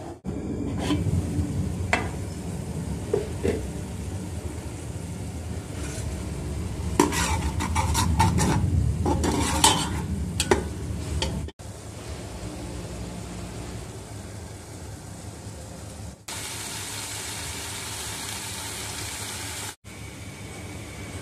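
A metal spoon stirring onion-and-tomato masala frying in an aluminium pot: steady sizzling, with the spoon clinking and scraping against the pot many times, most busily near the middle.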